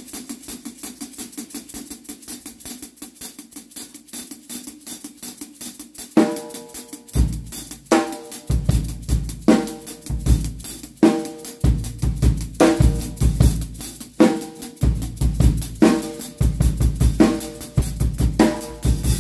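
Drum kit groove played with a stick-mounted steel-jingle tambourine, the jingles giving a fast, even sixteenth-note pattern. For the first six seconds only the jingling pattern plays; then kick drum and regular snare backbeats come in beneath it.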